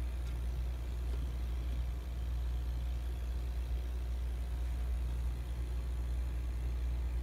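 Steady low hum of a running air compressor motor, unchanging throughout.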